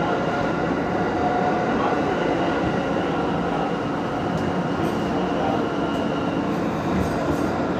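Interior of an R160 New York City subway car running between stations: steady rumble of wheels on rail and car body noise, with a faint steady whine over it.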